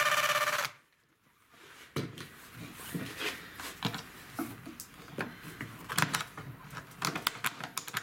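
A cordless screwdriver runs briefly on the screw of a washing machine door seal's clamp and stops before the first second is out. After a short pause comes a run of sharp clicks and scrapes as a metal screwdriver works at the loosened clamp band against the rubber seal and the plastic tub.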